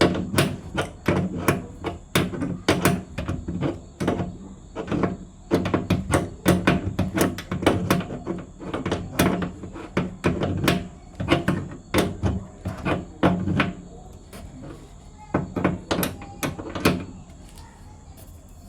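Rapid, irregular metallic clicks and knocks from a spanner tightening the flare nut on an air conditioner's copper refrigerant line coupling. The clicking stops about 17 s in.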